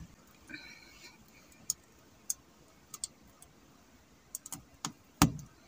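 Hands untying a thin cord from a car's rear-view mirror: scattered small clicks and ticks of handling, the loudest a sharp knock near the end.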